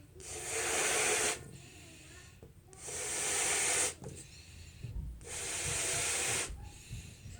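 A balloon being inflated: three long hissing puffs of air, each about a second long, spaced about two and a half seconds apart.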